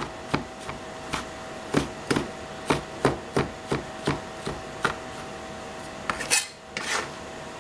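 Chinese cleaver chopping fresh shiitake mushrooms on a plastic cutting board, a steady knock about two and a half times a second. Near the end the chopping stops and there is a brief scraping sound.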